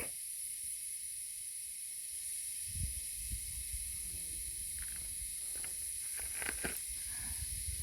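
Steady high-pitched drone of insects in the bush. From about three seconds in, a low rumble of wind on the microphone and a few soft thumps of footsteps join it.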